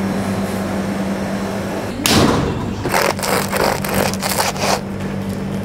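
Crusty baguette crust crackling as a knife cuts into it: a sharp crack about two seconds in, then a run of separate crisp crackles, over a steady low machine hum.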